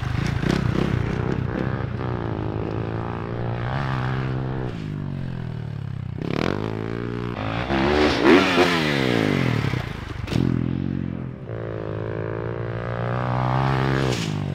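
Dirt bike engines revving up and down through the gears, the pitch climbing and dropping again and again; the loudest moment is a bike passing close about eight seconds in.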